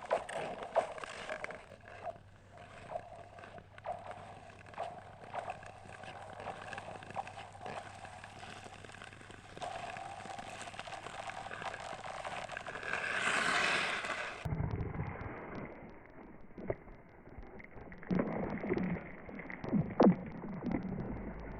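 Ice skate blades gliding and scraping over thin black ice, with many small sharp clicks and a louder swelling scrape about 13 seconds in. After an abrupt change in the sound about 14 seconds in, sharp cracks run through the thin ice, the loudest about 20 seconds in.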